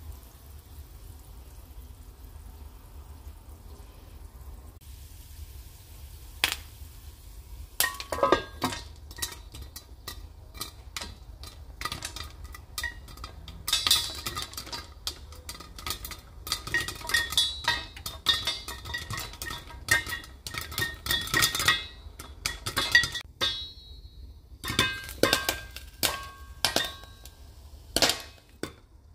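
Popcorn kernels popping in a nonstick frying pan under a stainless steel lid, the pops clinking against the metal. A few sharp single pops start several seconds in, build into rapid popping, pause briefly, then pick up again near the end.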